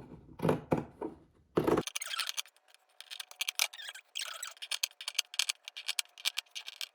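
Scissors snipping through shirt fabric, cutting fringe strips; a quick run of sharp snips and clicks from about two seconds in.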